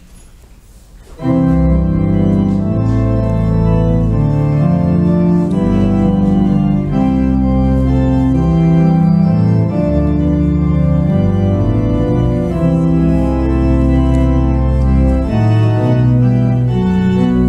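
Organ music starting about a second in: sustained chords over a deep bass line, the postlude closing the service.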